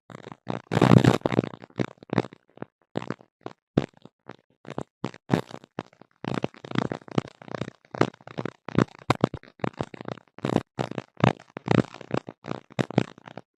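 Irregular, stuttering bursts of garbled noise that cut in and out many times a second: the unexplained strange noise picked up in a tablet's audio, taken for crosstalk interference.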